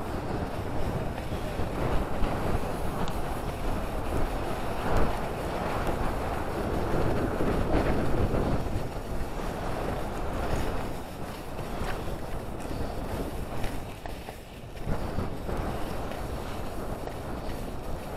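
Wind rushing over the camera's microphone while skiing downhill, mixed with the skis running over packed snow. A steady noise that swells and eases, with a brief lull about three quarters of the way through.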